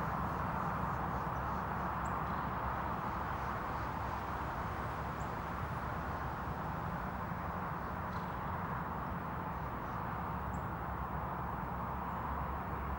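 Steady outdoor background noise with a few faint, brief high chirps scattered through it.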